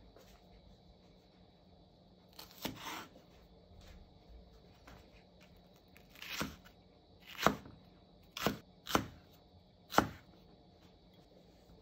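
Kitchen knife slicing through a Japanese long green onion and striking a wooden cutting board: about six separate cuts, one a few seconds in, another past the middle, then a quicker run of four near the end.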